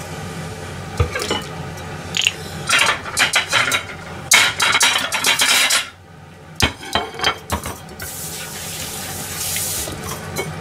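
Dishes, a bottle and utensils knocking and clinking as they are handled and set down on a stainless-steel kitchen counter. Loud clattering noise comes about midway, and a steadier hiss follows a few seconds later.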